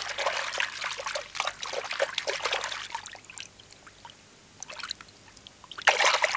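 Water splashing and dripping around a small animal that has fallen into a river. Many small splashes and drips thin out over the first three seconds, and a fresh burst of splashing comes near the end.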